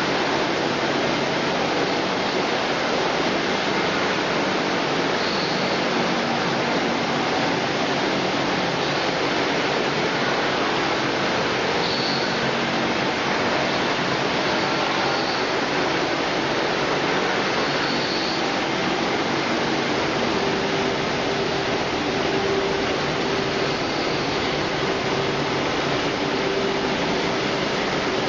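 Automatic french fries production line running: conveyors and machine motors give a steady, even rush of noise, with a faint hum joining in during the second half.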